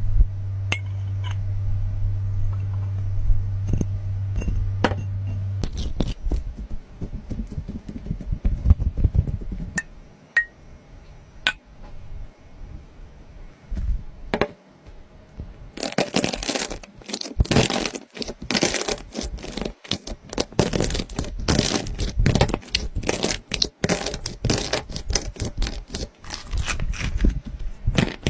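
Slime being squeezed and pulled by hand: scattered sticky clicks and pops, turning to dense crackling and popping about halfway through. A low steady hum runs under the first few seconds, then stops.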